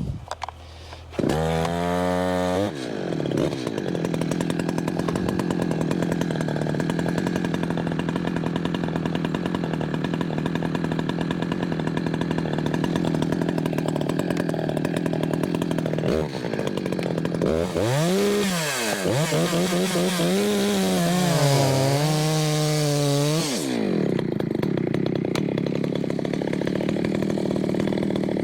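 Two-stroke chainsaw revving up about a second in, then running steadily under load through a long cut in ash rounds. Partway through, its pitch rises and falls repeatedly for several seconds before it settles into a steady run again.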